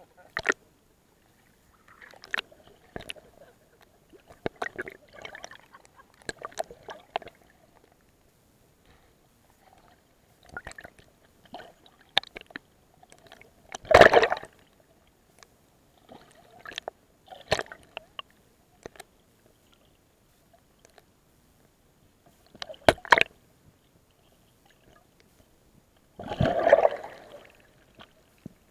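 Sea water sloshing and splashing around a camera held at the surface, in and out of the water, with scattered sharp clicks and bubbling. The loudest splashes come about halfway through and again near the end.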